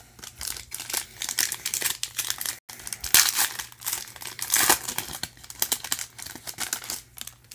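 Shiny foil wrapper of a Leaf Draft football card pack crinkling and being torn open by hand, a dense run of crackles that is loudest about three seconds in and again just before five seconds.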